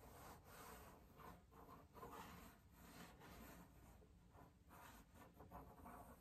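Faint scratching of a 4B graphite pencil sketching on drawing paper, in a series of short, light strokes.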